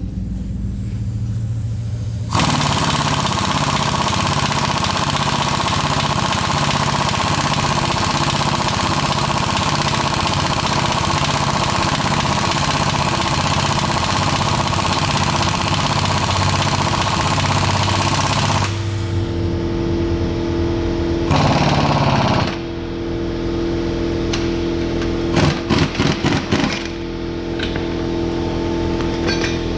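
Air or impact tool hammering rapidly and without a break for about sixteen seconds, then stopping. After it, a lower steady hum with two short bursts of rattling.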